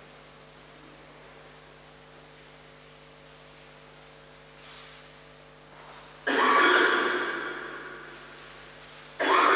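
Steady electrical mains hum under a quiet, reverberant church hall. About six seconds in and again near the end, two sudden loud sounds cut in and ring out, fading over a second or two.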